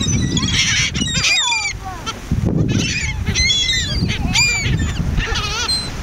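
A flock of gulls calling over one another at close range: many short cries that rise and fall in pitch, overlapping in quick succession, with a fast stuttering call near the end.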